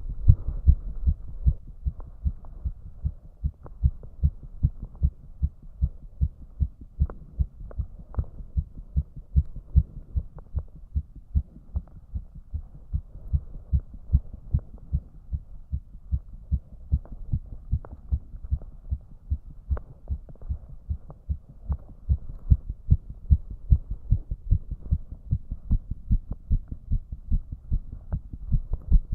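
A man's heart beating fast, about 150 beats a minute, after he deliberately raised his heart rate: a steady, even run of low thumps.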